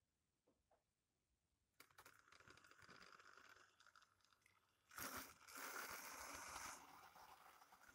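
Model railway train, a Flying Scotsman locomotive hauling Pullman coaches: near silence, then from about two seconds in a faint rattling whirr of the motor and wheels running over the track, louder about five to seven seconds in as the coaches pass close by.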